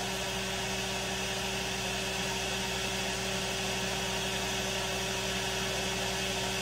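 Steady electric hum from a small running motor, with a few fixed low tones under an even fan-like hiss that does not change.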